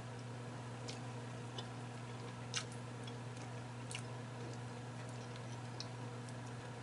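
Quiet eating sounds: chewing, and a few scattered soft clicks as a boiled shrimp is peeled by hand, over a steady low hum.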